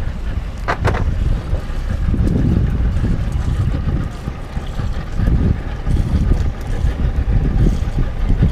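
Wind buffeting the action camera's microphone on a small boat on open water, a loud gusting rumble. A couple of light knocks come about a second in.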